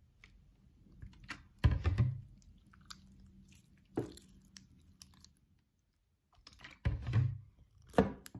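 Hands kneading sticky white school-glue slime, activated with borax solution, in a glass bowl: irregular wet squelches and sticky pops. The loudest come about two seconds in and again about seven seconds in. The slime is still sticky and not yet fully activated.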